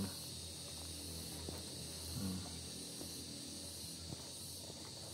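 Faint steady high-pitched insect chirring with a pulsing upper edge, and a few light clicks scattered through it.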